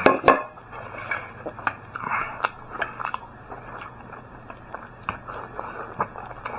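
A person chewing a mouthful of steamed bun close to the microphone, with a loud bite right at the start and then a run of small wet chewing clicks.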